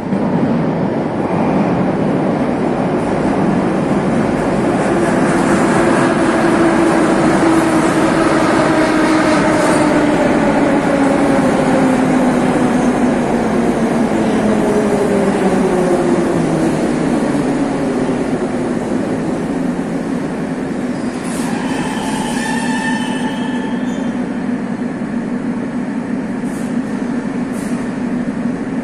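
81-717-type metro train pulling into the platform: a loud rolling rumble, with the traction motors' whine falling in pitch as it slows. A brief high squeal comes about three-quarters of the way through as it draws to a stop.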